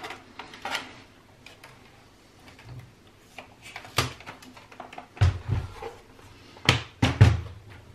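Knocks, clicks and thumps from a Pioneer A-445 amplifier's metal chassis and plastic front being handled and shifted on a workbench, with the heaviest thumps about five and seven seconds in.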